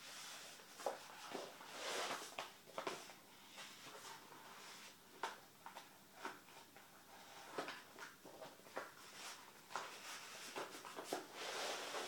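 Large glossy map sheets being slid into and out of the card pockets of a presentation case: repeated swishes of paper rubbing on card, with light taps and clicks in between.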